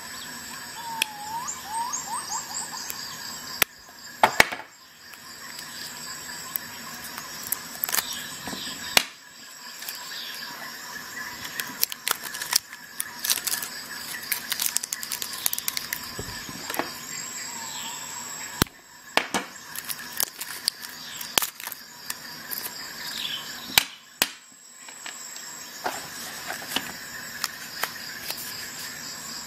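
Clear plastic blister wrap around AAA batteries being peeled and crinkled by hand, giving irregular crackles and sharp clicks.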